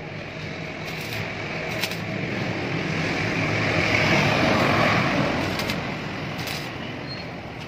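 Gas brazing torch flame hissing steadily while a refrigerator compressor's pipe joint is brazed, swelling louder about halfway through and then easing. A steady low hum runs underneath.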